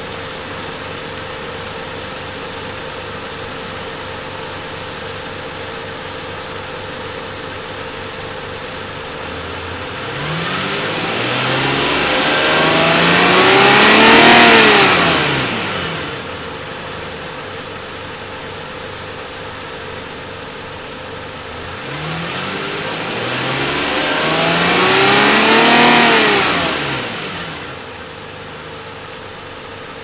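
Ferrari 456's V12 engine running at idle, then revved twice. Each time the revs climb for about four seconds and drop quickly back to idle.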